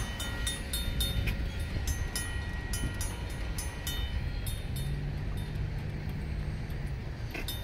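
Railroad crossing bells, including a Safetran mechanical bell, ringing at about three strikes a second as the gates rise after the train has cleared; the ringing fades and stops about four and a half seconds in. Under it a low rumble runs throughout, and a low steady hum comes in from about five to seven seconds in.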